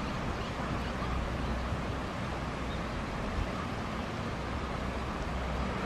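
Steady riverside ambience: an even rush with a low rumble underneath.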